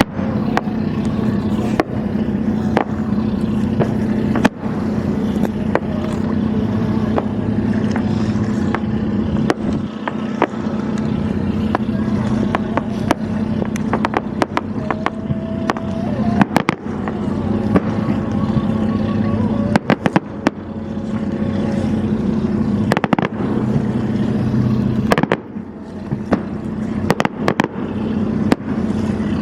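Fireworks going off in many sharp bangs and crackles, scattered irregularly, over the steady drone of a motorboat's engine.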